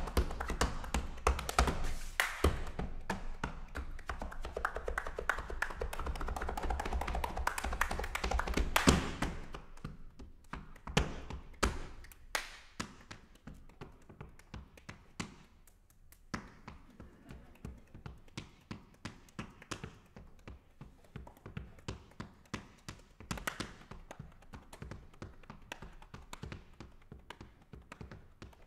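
Body percussion by a single performer: hand claps and slaps, loud and densely packed for about the first nine seconds, then dropping to soft, sparse claps and taps a few times a second.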